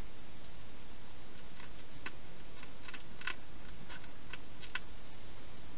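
Hedgehog eating from a dish inside a plastic feeding box: a run of irregular sharp clicks of chewing and crunching from about one and a half seconds in until near the end, over a steady hiss.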